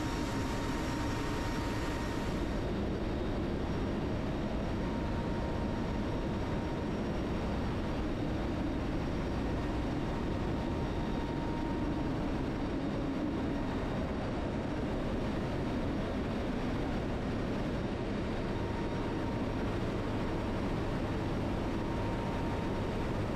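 Steady engine drone and rushing air inside a military transport aircraft's cargo hold with the rear ramp open in flight, with a faint steady whine that comes and goes.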